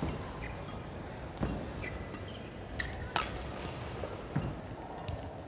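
Badminton rackets striking a shuttlecock in a practice rally: about four sharp hits, with thuds of players' footwork and short shoe squeaks on the court mat.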